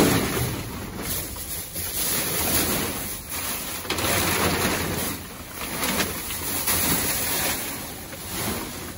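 Clear plastic bags and bubble wrap rustling and crinkling in swells as a gloved hand rummages through them in a dumpster.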